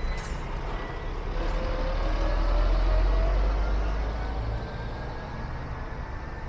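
Heavy drawbar lorry driving past, its engine note rising as it pulls through. It is loudest about three seconds in, then fades away.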